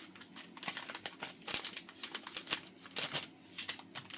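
Small plastic packet being handled and opened, its wrapping crinkling in irregular sharp crackles and clicks.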